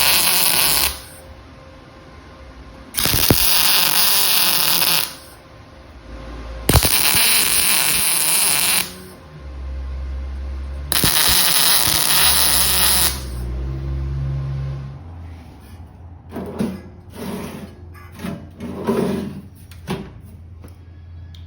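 Welding arc crackling in four separate bursts of about two seconds each, as a handle is welded onto a sheet-metal drawer face. Light metal knocks and clinks follow near the end.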